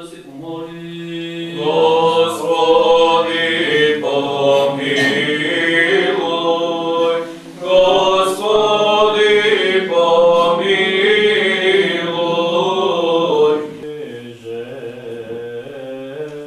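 Eastern Orthodox liturgical chant sung a cappella by several voices over a steady held low note. It grows louder about a second and a half in and drops back to softer singing near the end.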